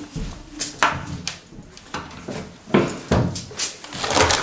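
Hard plastic adjustable cupboard legs knocking and clicking as they are handled and set down on a kitchen base unit's board, about half a dozen sharp taps at irregular intervals.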